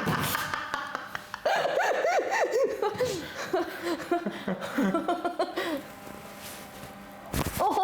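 A person laughing and giggling in short wavering bursts, quieter in the last couple of seconds. There is a brief sharp noise at the start and another near the end.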